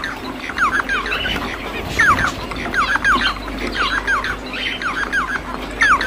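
Bengalese finch (society finch) singing: a chattering string of short, sharply falling notes, often in pairs or threes, in groups about once a second.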